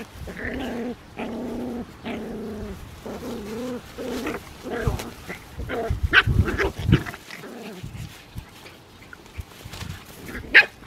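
San'in Shiba puppies growling at play during a tug-of-war, in wavering pitched growls for the first few seconds. Loud crinkling and scuffling of the plastic bag follows, with one sharp, loud sound near the end.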